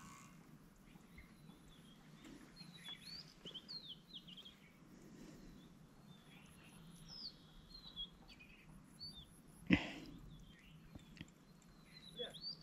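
Small birds chirping and calling in quick scattered phrases over a faint steady background hum. About ten seconds in, a single sharp knock stands out above the birdsong.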